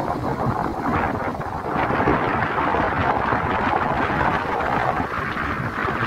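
Sea surf breaking and washing up a sandy beach in a steady rushing roar, mixed with wind on the microphone. It swells during the first couple of seconds and then holds.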